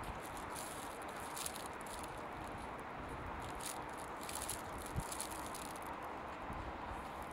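Footsteps crunching on snowy pavement at a walking pace, about two steps a second, over a steady hum of distant city traffic.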